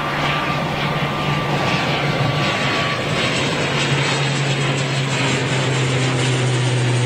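ATR twin-turboprop airliner climbing out overhead after takeoff, its Pratt & Whitney PW100-series engines and propellers making a steady drone. The low propeller hum drops in pitch a little past halfway as the aircraft passes and goes away. A thin high whine fades out in the first few seconds.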